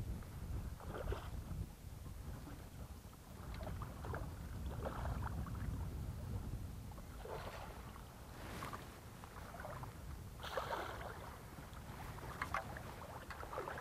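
Low wind rumble and water around a small boat, with a few short splashes in the second half as a hooked redfish thrashes at the surface.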